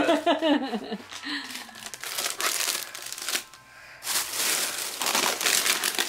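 Crinkly plastic snack bags rustling as they are handled and packed into a small basket, in two bouts with a short pause between them.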